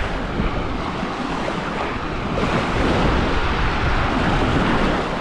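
Small waves washing onto a sandy shore, with wind buffeting the microphone; the surf grows a little louder past the middle.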